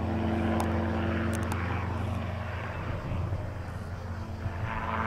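Robinson R22 helicopter in flight: a steady drone of its piston engine and two-blade rotor, a low hum made of several held tones.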